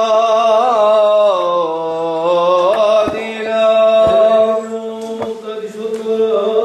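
Male liturgical chant: a single voice sings a melismatic line, gliding and bending between notes, over a steady low drone held beneath it.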